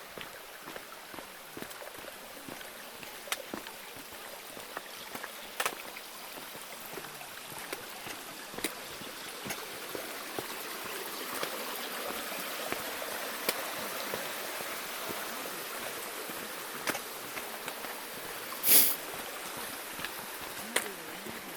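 Mountain stream running steadily alongside a rocky trail, with the sharp clicks of footsteps on stones every second or two. A brief louder scraping noise comes near the end.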